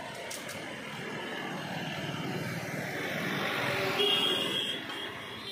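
Road traffic: a vehicle passing on the street, its noise swelling to a peak about four seconds in and then fading.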